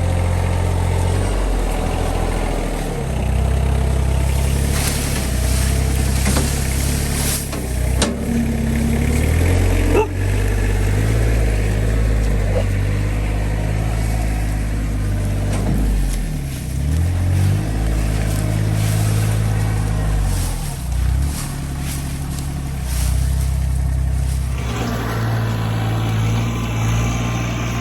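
RK25 compact diesel tractor engine running, its pitch and load shifting as it works, with a few sharp knocks about eight and ten seconds in.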